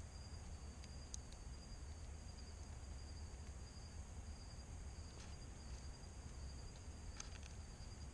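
Faint, steady high-pitched chorus of insects, over a low rumble, with a few faint clicks.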